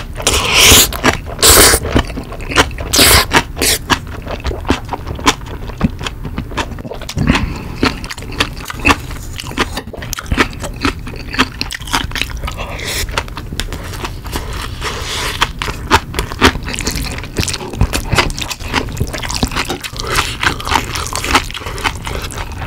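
Close-miked eating sounds: loud slurps of black-bean instant noodles (Jjapaghetti) in the first few seconds, then wet chewing with many small smacks and clicks, and chopsticks scraping now and then.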